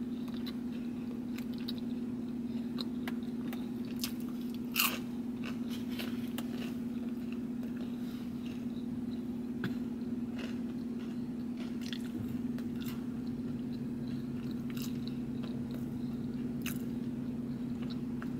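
A person chewing and crunching a forkful of a takeout lamb-and-rice bowl with pickles and olives, close to the microphone: irregular moist chews and crisp crunches, one sharper crunch about five seconds in. A steady low hum runs underneath.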